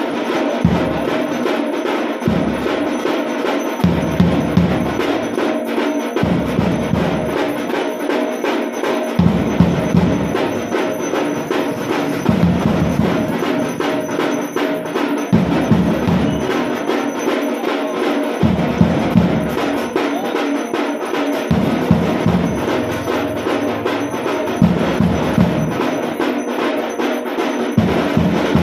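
Devotional percussion: drums beaten in a fast, steady rhythm with rapid sharp strikes, and a deeper drum sounding in bursts every couple of seconds.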